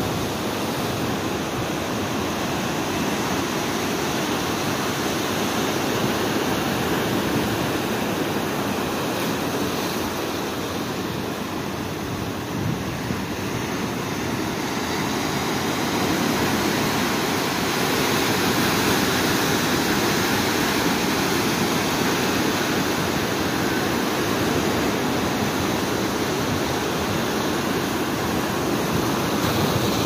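Big ocean waves breaking and washing against a rock jetty: a steady, dense rush of surf that grows a little louder about halfway through.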